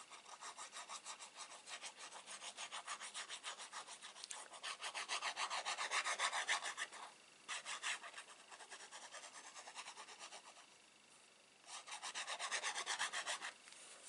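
The fine metal tip of an Art Glitter Glue bottle scraping quickly back and forth across kraft cardstock as it spreads glue, about five strokes a second. The strokes come in runs broken by short pauses.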